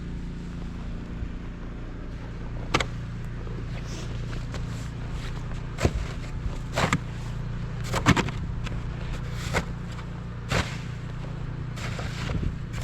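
Footsteps crunching in deep snow, irregular and a second or so apart, over a steady low rumble.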